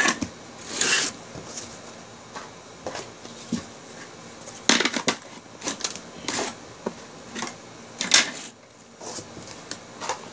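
Plastic toy train set pieces being handled and fitted together: scattered clicks and clatters, with the sharpest about a second in, around five seconds and around eight seconds.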